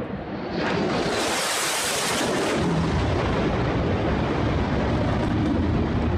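Fighter jet making a low pass: a loud roar swells about a second in, hissy at first, then settles into a deep rumble as the jet moves away.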